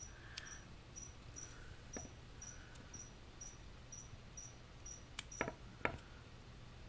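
A cricket chirping steadily, a short high chirp about twice a second, with a few faint clicks and taps, the loudest near the end.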